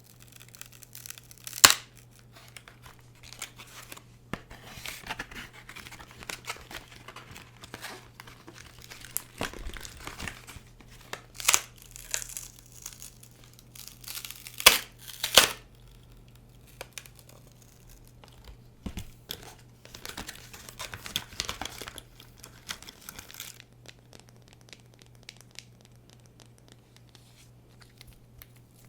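Packaging being crinkled and torn close to a microphone, in irregular bursts with a few sharper crackles. Near the end it dies down to faint ticks.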